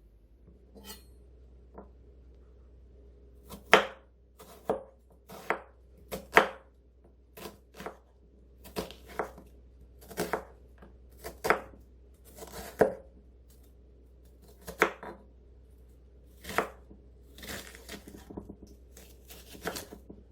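Knife chopping food on a cutting board: about twenty separate, irregular strokes, roughly one a second.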